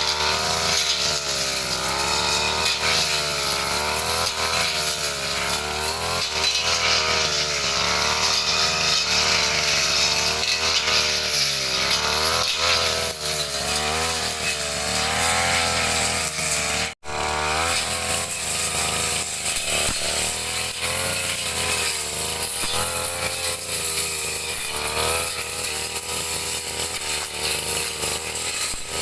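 Two-stroke brush cutter engine running hard while cutting grass and undergrowth, its pitch wavering up and down as the load changes. It cuts out for an instant about seventeen seconds in.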